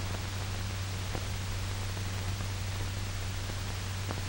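Steady hiss and low hum of an old film soundtrack's noise floor, with a couple of faint clicks.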